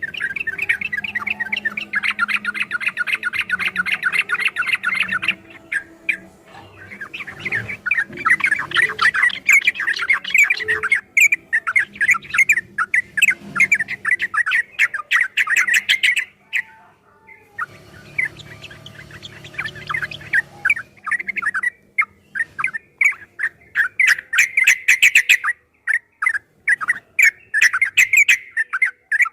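Yellow-vented bulbul (trucukan) singing long, fast runs of chattering notes, with short breaks and a brief pause about halfway through.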